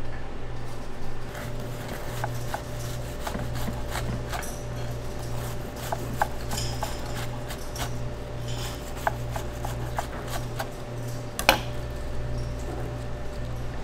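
Restaurant kitchen work: scattered light clicks and knocks of utensils and dishes over a steady hum of kitchen equipment, with one sharper knock near the end.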